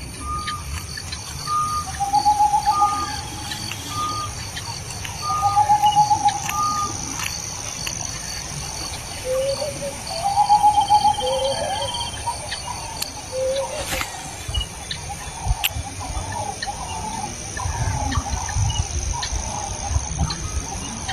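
Birds calling: short, clear high notes repeated about once a second and louder trilled calls every few seconds, over a steady high-pitched hum.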